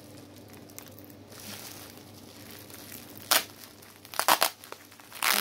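Bubble-wrap packaging crinkling and tearing as it is pulled open by hand. It is a faint rustle at first, then several sharp rips and crackles in the last two seconds.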